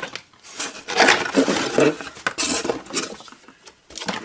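Stamped sheet-steel parts clinking and clattering together as they are handled, in a string of irregular metallic knocks.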